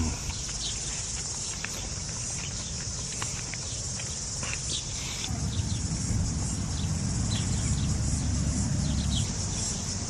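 Steady high-pitched chirring of an insect chorus. A low rumble joins it from about five seconds in and fades near the end.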